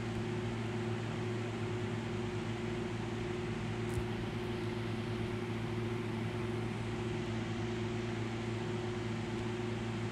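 Steady low hum with a background hiss, like a running appliance or fan, with a faint click about four seconds in.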